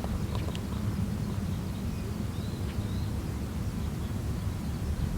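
Outdoor ambience: a steady low rumble with faint bird chirps above it, and a few light clicks near the start.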